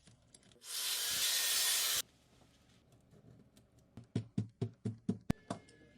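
A hiss of air, like a short blast from an air spray, lasting about a second and a half and cutting off sharply. Near the end come about seven quick taps or clicks, like tools working on the phone.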